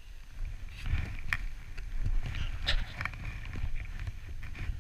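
Dog sled gliding over packed snow: a low rumble from the runners with wind buffeting the microphone, growing louder about a second in. A few short sharp clicks stand out over it.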